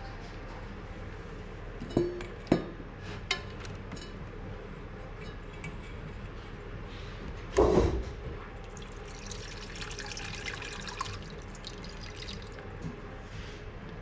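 Water from the irrigation pump's hose running into a stainless steel bowl, with knocks as the hose and bowl are handled and a louder metallic clunk about halfway through; the stream splashes into the bowl for a couple of seconds after that.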